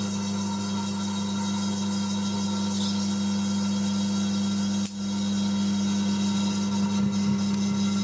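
Panasonic inverter microwave oven running, a steady hum with a hiss over it, while light bulbs glow and flare inside the cavity. About five seconds in, the sound dips out for an instant.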